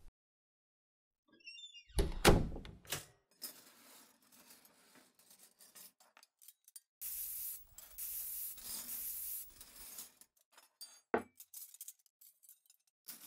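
Household handling sounds: a loud thunk about two seconds in, then scattered knocks, clicks and light clinks, with a few seconds of steady hissing in the middle.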